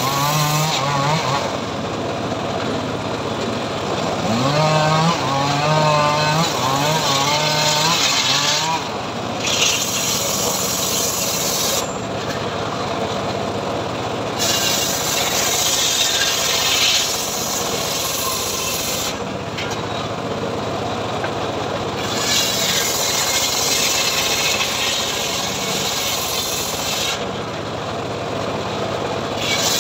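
Homemade bench circular saw ripping a mahogany plank lengthwise: the blade's loud, rasping cut through the wood comes and goes, easing off for a couple of seconds every few seconds as the plank is pushed along, over the steady drone of the motor driving the blade.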